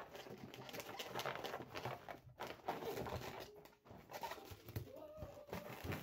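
Inflated latex balloons rubbing and squeaking against each other and against the hands as they are squeezed and twisted together, with a few short squeaks, strongest about five seconds in, over soft rubbing and crinkling.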